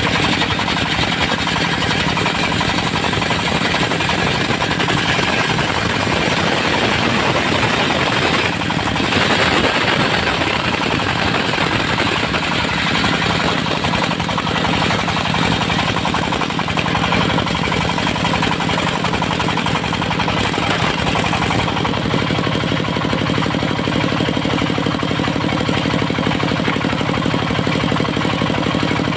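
Diesel-driven circular sawmill blade ripping dry teak, the engine running under load with a rapid hammering beat under the saw's cutting noise. About two-thirds of the way through, the high cutting noise drops away and the engine settles into a steadier run.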